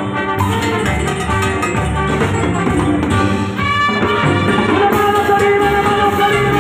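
Live Latin dance band playing, with a brass section of trumpets and trombones over drum kit, congas and keyboard. The horns hold long notes in the second half.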